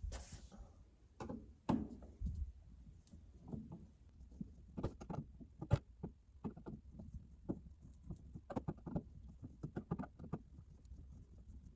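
Irregular small clicks, scrapes and knocks of a screwdriver working screws out of a smoke alarm's mounting base, with a sharper knock about two seconds in.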